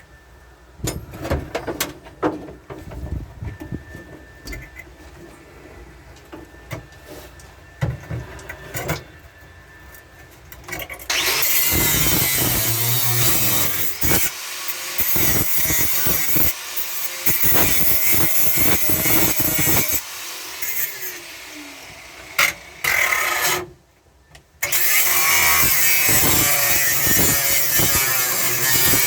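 Clanks and knocks of tools on metal, then about eleven seconds in an angle grinder's wheel runs loud against the sheet-steel cab floor, its pitch shifting under load. It stops for about a second near the end and starts again.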